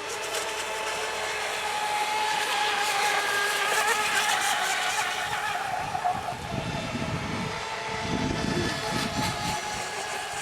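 Electric motors of several radio-controlled racing boats running together, a steady whine of several pitches at once. About six to nine seconds in, irregular low rumbles come in under it.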